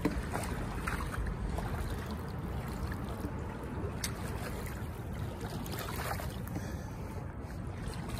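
Creek water rushing steadily, with a few brief knocks from someone walking toward or into the creek.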